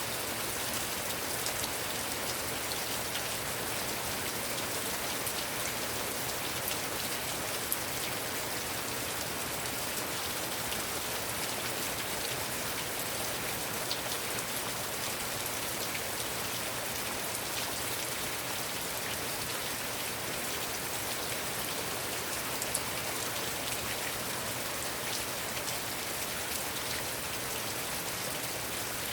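Heavy rain falling steadily, with scattered sharp individual drop hits.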